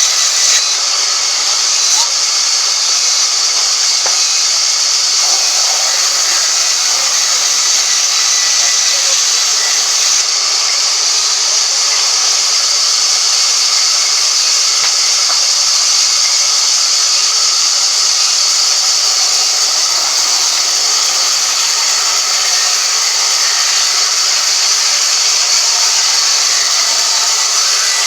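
A woodworking power tool running steadily: a loud, even hiss that stays unchanged throughout, strongest in the upper range with little low rumble.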